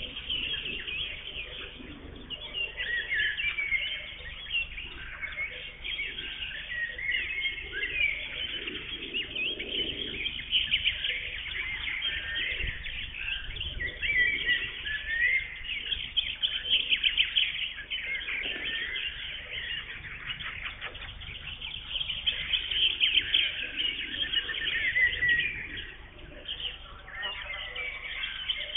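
Several songbirds singing at once: a continuous chorus of overlapping songs and chirps.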